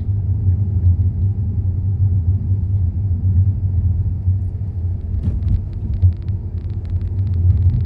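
Steady low road rumble of a moving car heard from inside the cabin, with a run of faint light clicks in the second half.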